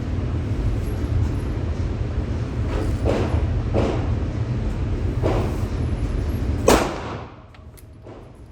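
Gunshots at a shooting range: a few muffled reports over a steady low rumble, then one sharper, louder shot near the end, after which the rumble drops away.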